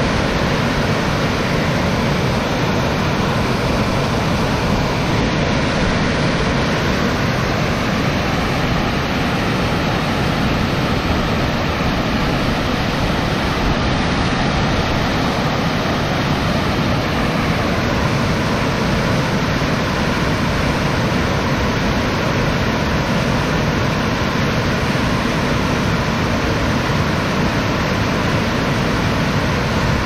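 Water pouring over a small waterfall, a steady rushing noise.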